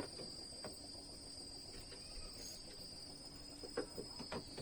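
Steady, high-pitched chorus of insects trilling, with a few faint knocks near the end.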